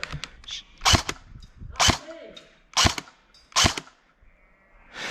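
Airsoft gun firing: four loud, sharp shots about a second apart, with another beginning just at the end.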